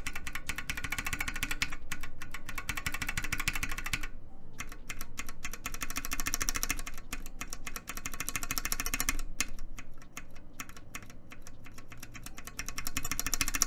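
Lubed c3 Kiwi tactile mechanical keyboard switches with keycaps being pressed rapidly and alternately, giving a continuous fast clacking with a brief pause about four seconds in. One switch has switch film and the other has none; the filmed one sounds slightly deeper.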